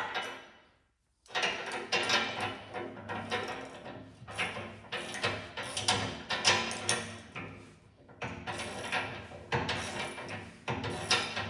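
Background music with a steady beat, cutting out completely for a moment about a second in.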